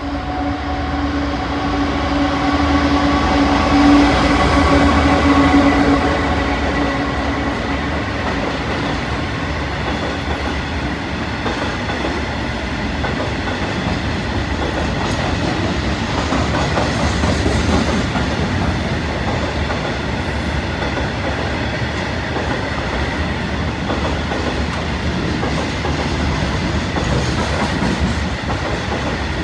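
A train passing on the line through the station. A steady humming tone is loudest about four to six seconds in, over a continuous noise of the wheels on the rails that lasts throughout.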